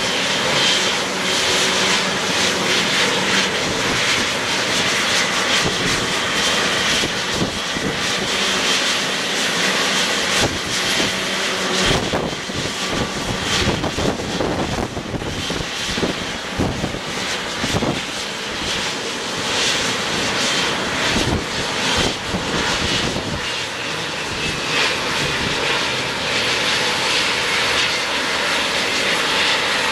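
Boeing 777-200LR's General Electric GE90 turbofan engines running at taxi idle as the airliner rolls slowly onto its stand: a steady jet whine with a high-pitched tone over a broad rush.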